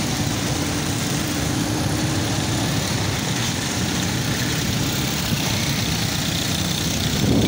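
Motorcycle engine running steadily while riding through floodwater, with a continuous rush of churned water.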